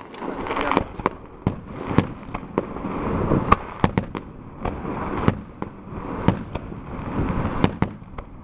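Fireworks going off: a rapid, irregular run of sharp bangs, several a second, over a continuous crackle.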